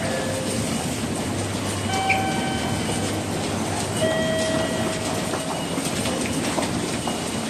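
Train noise in a busy railway station: a steady rumble with many small clicks. Twice, at about two seconds in and again at about four seconds in, a brief high tone rings for about a second.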